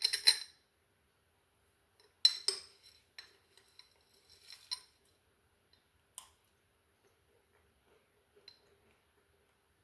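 A spoon clinking and scraping against a jar as dry oats are scooped out, in a few separate bursts of bright clinks, the last about six seconds in. Faint small ticks follow.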